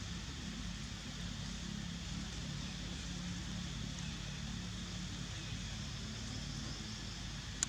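Steady outdoor background noise: a low, even engine-like hum with a high hiss over it, and one sharp click near the end.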